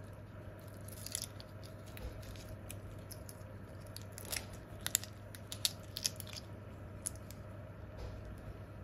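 Shells being peeled by hand off thawed raw shrimp: scattered small, sharp crackles and tearing clicks as the shells and legs come away, bunched about a second in and again through the middle, over a faint steady hum.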